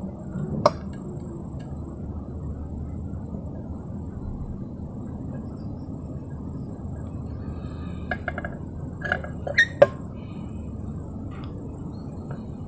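Steady low background hum while a capacitor lead is soldered to a pin of an amplifier IC, with a few light clicks and taps, one about a second in and a handful between about eight and ten seconds in, as the iron and the part are handled.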